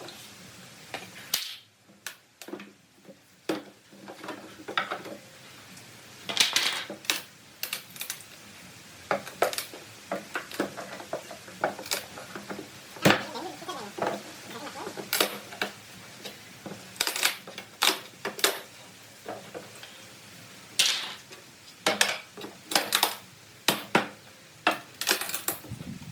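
Metal tools and parts clinking, clicking and knocking irregularly as they are handled on a workbench, with a few louder knocks.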